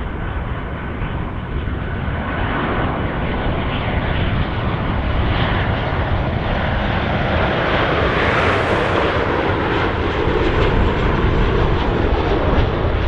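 Jet engines of a Boeing 737-800 on final approach: a continuous rumbling whoosh that grows steadily louder as the airliner comes in low to land, with a brief high hiss about eight seconds in.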